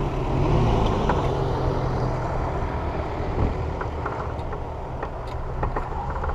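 Off-road 4x4's engine running at low revs, its note steady at first and fainter after a couple of seconds, with scattered clicks and knocks.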